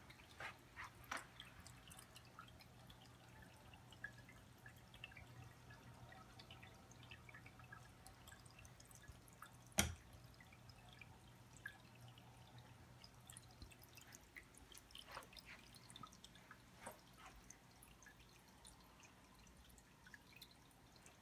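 Faint dripping and trickling of water circulating through a newly set-up reef aquarium, scattered small drips over a low steady hum. One sharp click about ten seconds in.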